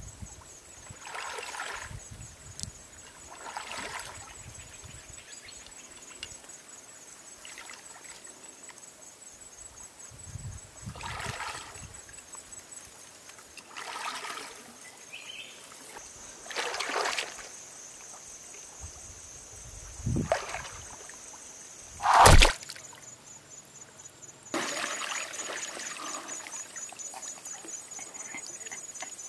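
Muddy pond water splashing and sloshing as a person wades and crouches in it, in a series of separate splashes a few seconds apart. One sharp, loud splash comes about three-quarters of the way through.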